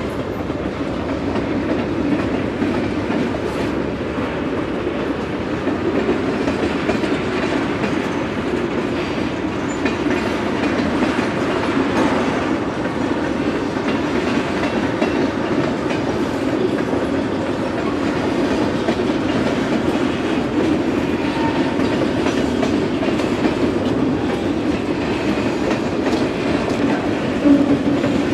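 Canadian Pacific manifest freight train rolling past, its tank cars and covered hoppers making a steady rumble of steel wheels on rail with clickety-clack over the rail joints.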